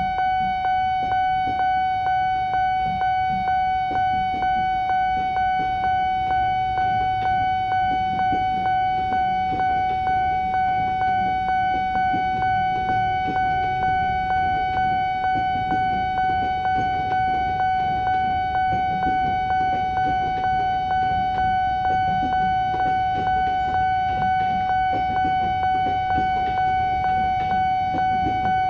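Railway level-crossing warning bell ringing on one steady pitch, struck over and over at a little under two strokes a second while the crossing is closed for a train. Under it is the low rumble of a KRL commuter electric train passing.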